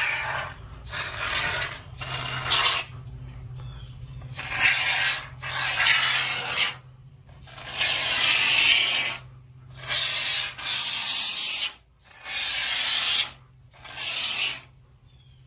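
Aerosol can of Great Stuff Gaps & Cracks expanding foam hissing and sputtering as foam is sprayed through its straw, in about ten spurts of a second or so with short pauses between.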